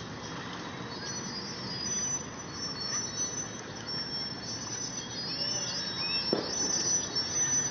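Crickets chirping in steady high trills, over a low background rumble.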